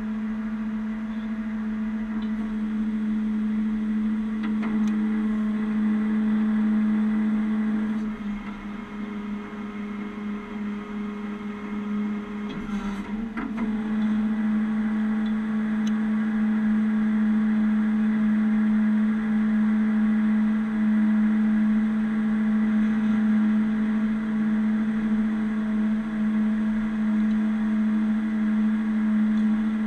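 Heavy-duty wrecker's engine running at a steady pitch, a strong low hum. It sags in level about eight seconds in and picks back up around thirteen seconds, with a single sharp knock just before.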